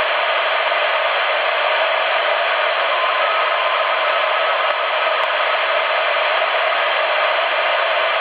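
Steady hiss of band noise from a CRT SS 9900 CB transceiver's speaker in upper-sideband mode, with no station coming through.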